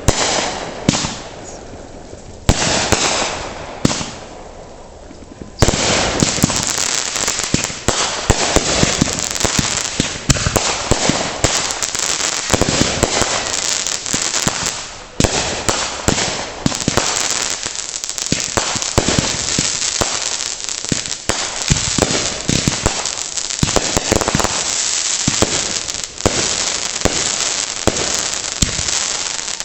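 Backyard consumer fireworks going off: a few separate bangs, then from about five seconds in a dense, continuous crackle of rapid pops and cracks with louder bangs scattered through it.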